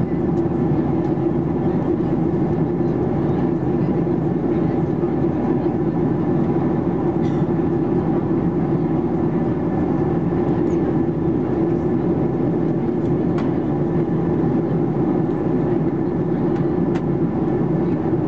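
Steady cabin drone of a Boeing 737-800 in flight, heard from inside the cabin over the wing: the CFM56-7B turbofans and the airflow along the fuselage, with a few faint clicks.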